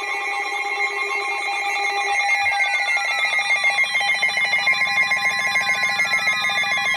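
Several weather alert radios sounding their alert alarms at once, announcing an incoming warning. Overlapping electronic tones pulse rapidly, with repeated falling siren-like sweeps, and a low buzz joins about two and a half seconds in.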